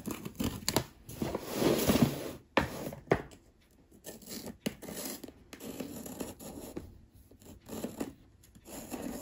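Felt-tip marker scribbling over the address on a paper mailer, with scratchy rubbing strokes. The strokes are dense for the first couple of seconds, then come as scattered short scratches.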